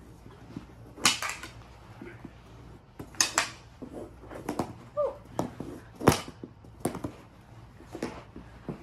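Mini hockey sticks clacking against each other and against the ball in a fast knee-hockey scramble on carpet: a string of irregular sharp clacks, the loudest about six seconds in.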